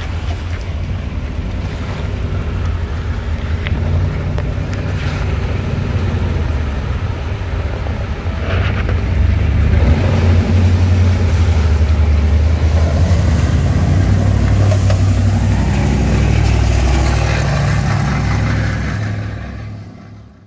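Engine of an amphibious Humvee WaterCar running steadily as it motors in through the water and climbs out up a boat ramp, getting louder as it comes closer, with water washing off it as it leaves the water. The sound fades out near the end.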